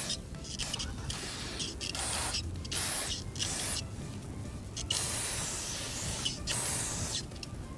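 Aerosol brake cleaner hissing out of a spray can's straw onto a car's brake caliper and rotor in a series of bursts. The longest bursts last about two seconds and the shortest well under a second, with brief stops between them.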